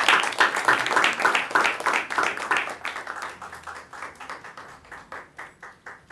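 Audience applauding: dense clapping that thins and fades to a few scattered claps near the end.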